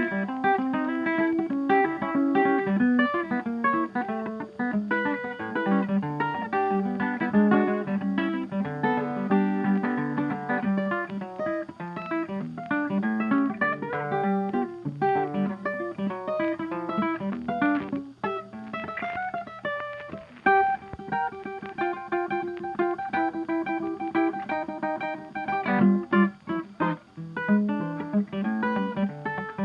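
Background music: plucked acoustic guitar with rapid picked and strummed notes.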